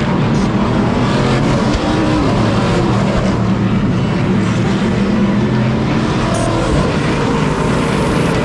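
Several NASCAR Craftsman Truck Series race trucks' engines running hard at racing speed, their pitches rising and falling and overlapping as they pass one another.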